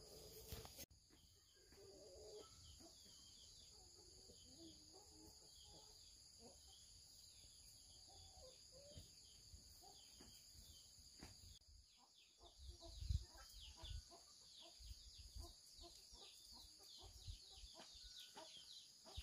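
Chickens clucking softly over a steady high drone of insects, with short high chirps throughout and a few low thuds in the second half.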